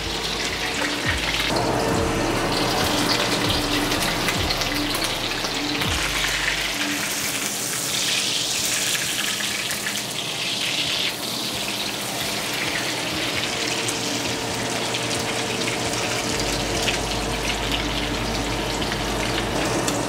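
Oil sizzling steadily in a wok around a frying instant-noodle, sardine and egg patty.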